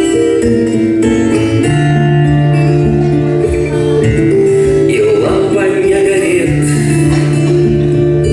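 Recorded song playing, still in its introduction before the lyrics: held notes over a steady low bass line.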